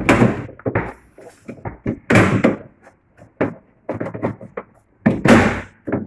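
Snap-fit plastic cover in an Arçelik refrigerator being knocked and pressed into its clips by hand. It makes a run of plastic clacks and clicks, with three louder knocks: at the start, about two seconds in and about five seconds in.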